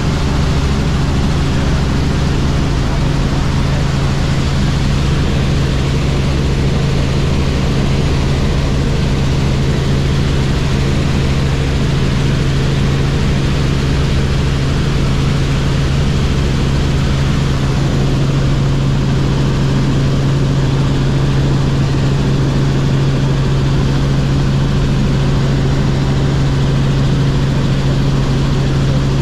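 Robinson R44 Clipper helicopter in flight: its six-cylinder piston engine and rotors make a loud, steady drone with a strong low hum.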